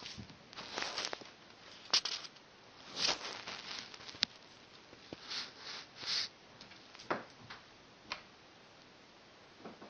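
A cat at play: irregular short rustles and scuffs as it swats and leaps at a white dangling toy, with a few sharp taps about four and five seconds in.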